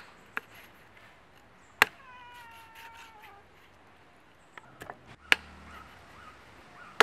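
Knife chopping through chicken wings onto a wooden log chopping block: a few sharp, separate chops several seconds apart. About two seconds in, a drawn-out animal call that falls slightly in pitch lasts over a second.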